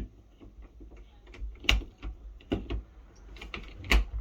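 Irregular sharp clicks and knocks of bathroom door lock and handle hardware being handled and fitted, with two louder knocks, one under two seconds in and one near the end.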